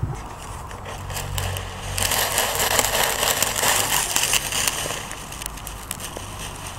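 Close crunching and crackling of a camera being picked up and carried, strongest from about two to five seconds in, after a knock right at the start.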